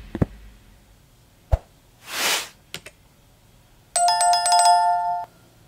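Subscribe-button animation sound effects: a few short clicks and a thud, then a whoosh and a quick double click. After that a notification bell rings with several clear tones for just over a second and cuts off sharply.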